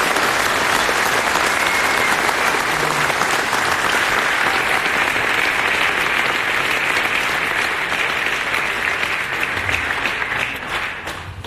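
Large audience applauding steadily, the clapping starting to die away near the end.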